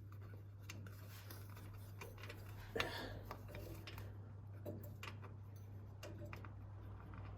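Small metallic clicks and taps of a bolt and hand tool being worked into a differential cover, with one louder knock about three seconds in, over a steady low hum.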